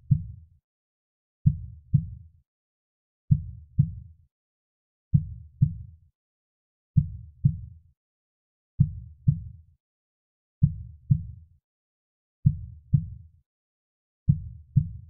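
Soft, slow heartbeat: a low lub-dub double thump repeating about every two seconds, with silence between beats.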